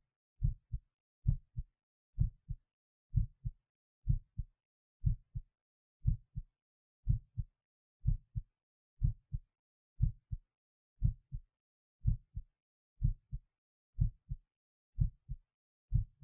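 A person's heartbeat, steady at about one beat a second. Each beat is a louder first sound followed by a softer second one about a third of a second later.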